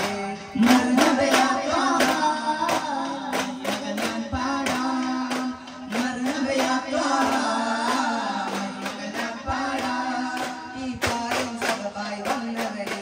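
Duff muttu song: singing over duff frame drums struck in rhythm, the sharp drum strokes coming in clusters under the melody.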